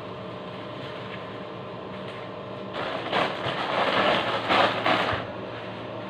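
Rustling and crackling of leafy mustard greens and plastic as vegetables are handled, lasting about two seconds in the middle, over a steady low hum.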